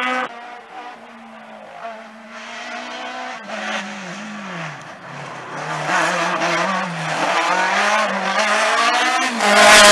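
A race car's engine approaching through a slalom course. The revs fall away around four to five seconds in, then climb again as the car gets nearer, and it is loud near the end.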